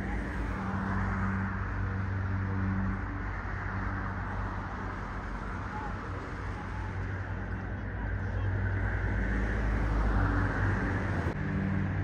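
A steady low engine drone under an even outdoor hiss. The hiss swells about a second in and again near the end.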